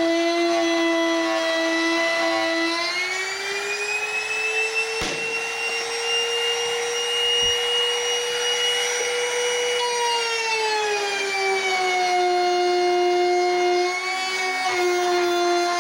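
Wood router motor running at high speed as it trims the border of an HDHMR board, with a steady high whine. The whine glides up in pitch about three seconds in, holds, and falls back to its first pitch about ten to twelve seconds in.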